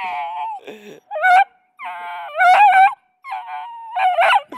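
Beagle puppy baying and yelping loudly in a string of about five high-pitched calls close to the microphone, some rising and some falling in pitch, with short gaps between them. These are the excited cries of a puppy that wants to get to the other dogs and play, as the owner reads them.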